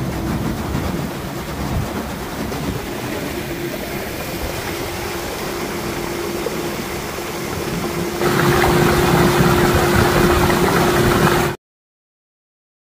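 A 6-horsepower ePropulsion electric outboard driving an aluminum jon boat on a top-speed run: a steady motor whine over water rushing past the hull. It gets louder about eight seconds in, then cuts off abruptly near the end.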